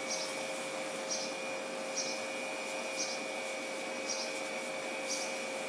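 Steady machine-like hum with a few constant tones, and a short high chirp that repeats about once a second.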